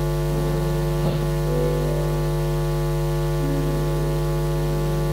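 Steady electrical mains hum through the church sound system, a buzzy stack of overtones about as loud as the speech around it.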